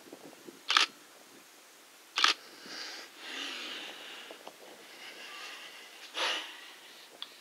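Camera shutter firing three times: short sharp clicks about a second and a half apart, then about four seconds later.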